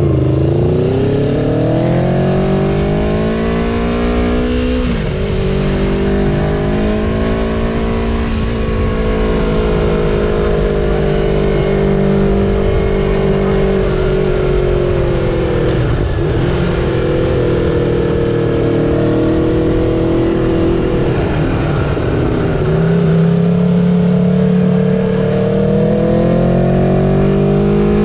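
Aprilia Tuono V4 Factory's V4 engine heard onboard, accelerating: its pitch climbs, drops sharply twice in the first ten seconds, then holds at steadier revs with small dips before climbing again near the end.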